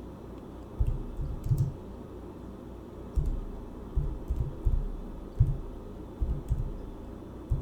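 Irregular keystrokes on a computer keyboard, heard as dull low knocks, some in quick pairs, over a faint steady hum.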